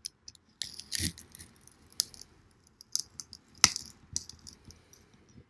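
A handful of light, sharp clicks and clatters of hard objects being handled and set down on a hard surface, about one a second, the loudest a little after halfway.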